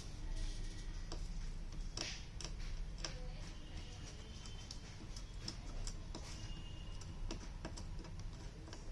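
Scattered light clicks and taps at irregular intervals, the sound of small parts and tools being handled, over a steady low hum.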